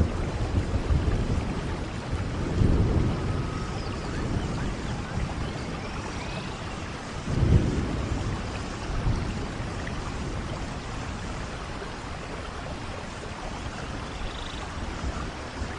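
Steady rain with low rolls of thunder, one of them about two seconds in and a louder one about halfway through.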